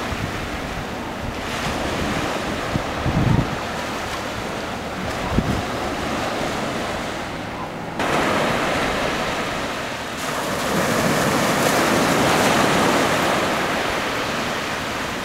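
Small waves breaking and washing up a sandy beach, with wind buffeting the microphone in a few low thumps. About halfway through, the surf sound changes abruptly and grows louder.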